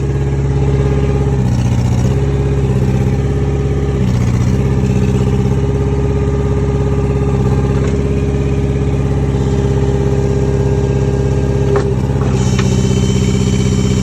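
Thomas 135 skid steer's engine running steadily, its note shifting under load a few times as the hydraulics are worked, with a brighter, higher-pitched whine near the end.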